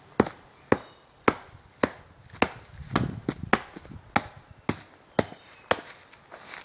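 Axe chopping into the wood of a standing tree: about a dozen sharp strikes at a steady pace of roughly two a second.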